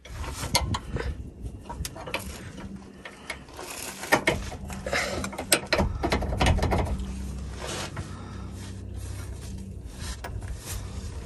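Hand tools clicking and knocking on metal hardware as a suspension control arm is bolted in: irregular sharp clicks, thickest a few seconds in, over a low steady hum.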